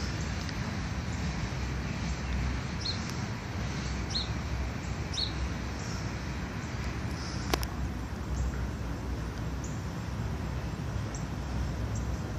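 Birds chirping in short high notes, several in the first half, over a steady low rumble. A single sharp click comes about seven and a half seconds in.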